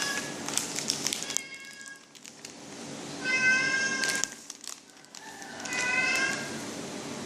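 Domestic cat meowing repeatedly: several drawn-out meows about two seconds apart, with brief crackling noises between them.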